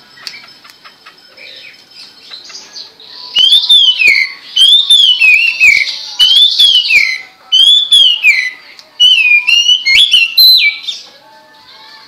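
Hwamei (melodious laughingthrush) singing. A few soft chirps give way, about three seconds in, to loud whistled phrases. Four of these are slurred notes that rise and then slide down, about one every second and a half. They are followed by a run of quicker, varied whistles that stops shortly before the end.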